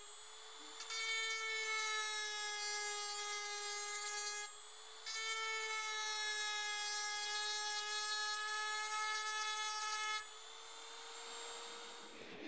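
High-speed OMAX Extra rotary tool (bormashina) whining steadily while its small burr engraves lettering into painted metal, with a grinding scratch from the bit. The sound drops quieter for about the first second, briefly around the middle, and again near the end.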